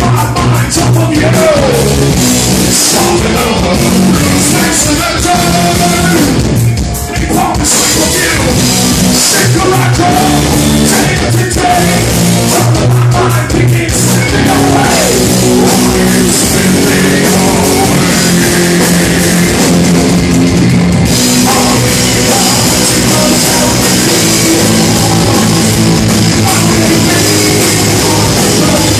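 Live heavy rock band playing loud: drum kit and guitars, with a singer's vocals over them.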